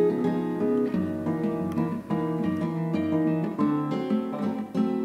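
Background music: an acoustic guitar plucking a melody of notes at an even pace.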